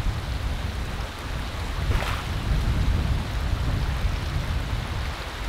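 Wind buffeting the microphone: an uneven low rumble under a steady rushing hiss, with a short louder rush about two seconds in.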